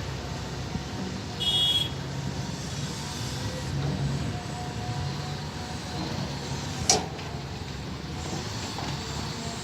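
Heavy diesel machinery at an excavation site running steadily with a low rumble. A short high-pitched beep sounds about a second and a half in, and a single sharp knock comes near seven seconds.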